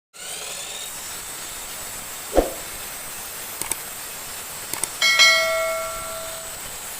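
A metal object struck once and left ringing, its tone dying away over about a second and a half, after a dull thud and a few light clicks, over a steady hiss.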